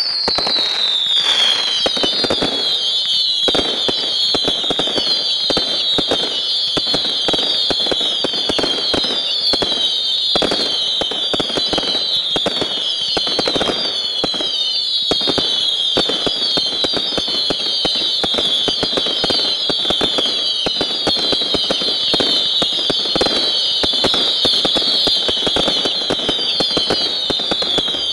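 Fireworks barrage firing whistling shots: a continuous stream of overlapping whistles, each falling in pitch, one after another, over a dense rattle of pops and crackles.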